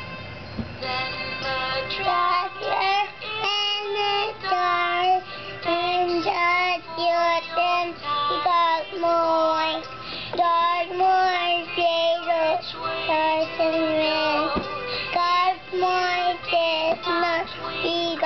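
A child singing a melody in held, gliding notes over music, starting about a second in after a few steady chime-like tones.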